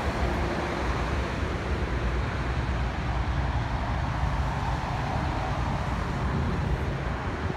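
Steady low rumble and hiss of distant road traffic, with wind on the microphone.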